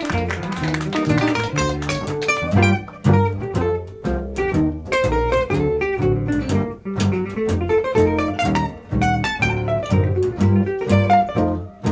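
Gypsy-jazz band playing an instrumental passage: acoustic guitar over a plucked double bass.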